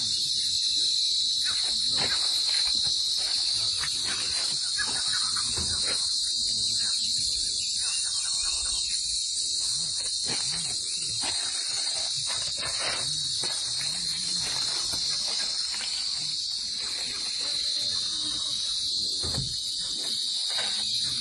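A steady, high-pitched insect chorus, with faint scattered rustles and knocks beneath it.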